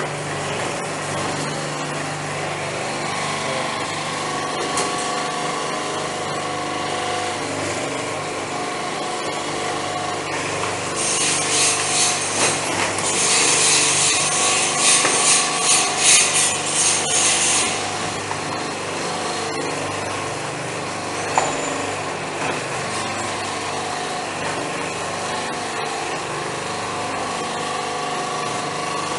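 Coconut husk peeling machine running with a steady motor hum. From about a third of the way in, for some seven seconds, a loud rasping and tearing joins it as a coconut's husk is stripped between the rollers.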